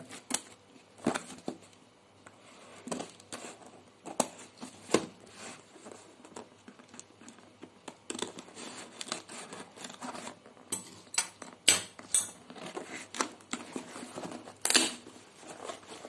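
Scissors cutting through the packing tape on a cardboard shipping box: irregular sharp snips and scrapes of the blades on tape and cardboard. There is a quick flurry of them about eleven seconds in, and a longer tearing rasp near the end as the tape gives and the flaps come open.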